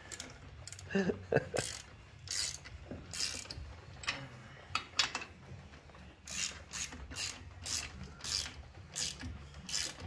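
Hand ratchet clicking in repeated short strokes, about one to two a second, as the nuts holding a wheel adapter to a rear drum-brake hub are run down.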